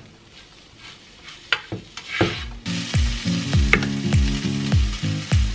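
Vegan mince stirred and scraped with a spatula in a frying pan, sizzling quietly. About two and a half seconds in, background music with a deep, thudding beat comes in over a louder, steady sizzle, with a few sharp knife strikes on a wooden chopping board as a cucumber is sliced.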